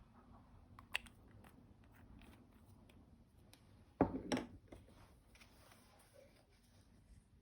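Clear slime being handled and mixed with makeup: scattered small sticky clicks and crackles, with a louder crackling squish about four seconds in.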